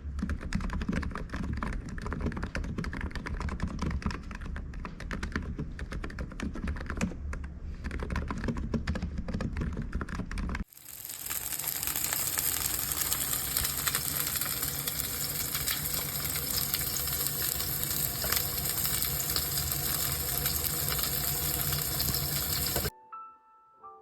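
Fast typing on a computer keyboard, an ABKO KN30BT, a dense run of key clicks. About halfway through it cuts abruptly to another take of typing with a steady hiss behind it. Near the end the typing stops and a few soft piano notes begin.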